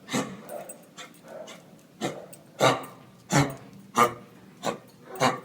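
A dog barking: one bark at the start, then a steady run of six sharp barks, about one and a half a second.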